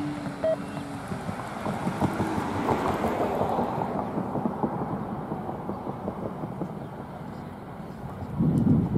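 Norfolk Southern ballast cleaner train approaching slowly, a steady rumble with rapid clattering that is strongest from about two to five seconds in. A brief steady tone sounds at the start, and a loud gust of wind hits the microphone near the end.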